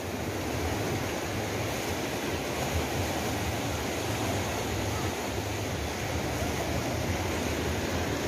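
Sea surf washing in and out among boulders on a rocky shore, a steady rush of water, with a low wind rumble on the microphone.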